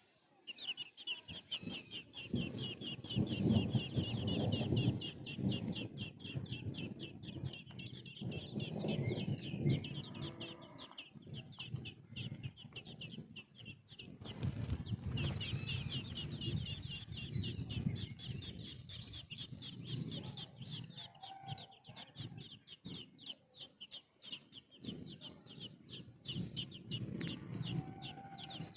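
Baby birds begging as a parent bird feeds them: a rapid, high chirping, many calls a second, that pauses briefly about halfway through. Under it runs an irregular low noise.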